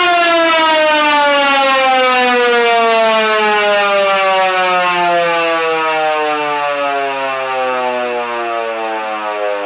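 Federal Signal Model 2 electromechanical siren, run on 240 volts, sounding one loud wail whose pitch falls slowly and steadily as the rotor slows.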